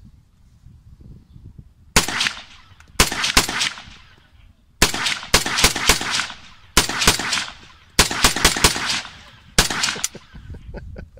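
Rapid semi-automatic rifle fire from an M1 carbine: about fifteen shots in quick strings of two to four, starting about two seconds in, each crack followed by a short echoing tail.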